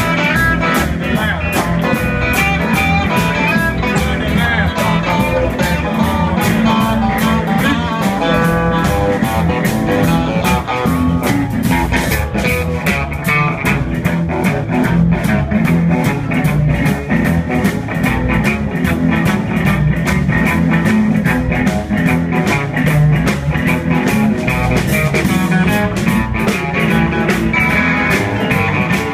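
Live electric blues band playing at full volume: electric guitars, electric bass, piano and drums, with a steady, driving beat.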